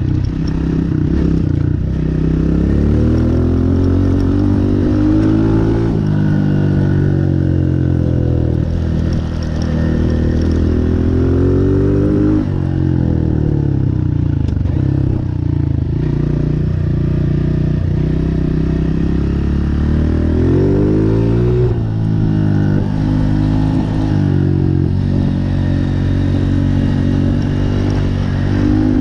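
Honda CRF125F Big Wheel's 125 cc four-stroke single-cylinder engine running hard while the bike is ridden, its pitch climbing and dropping back several times as the rider accelerates, shifts and eases off.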